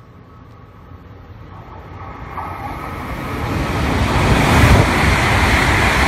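Hokuriku Shinkansen bullet train passing through the station at speed without stopping: a rush of air and rail noise that grows steadily louder for about four seconds as it approaches. It becomes a loud roar as the train sweeps past alongside.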